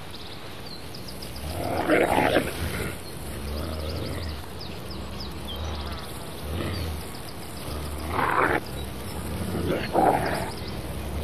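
Iberian wolves snarling: three rough outbursts, a long one about two seconds in and two shorter ones near the end. They are warning snarls from a mating pair, still tied together, at pack members that come too close.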